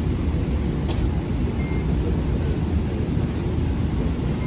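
Airliner cabin noise: a steady low rumble of engines and airflow, with a couple of faint clicks.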